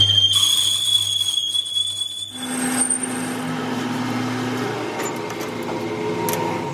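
Metal lathe turning the bore of a steel truck wheel hub: a thin, high-pitched whine from the cutting tool for about two seconds, then the lathe running on with a steadier, lower hum once the tool is out of the cut.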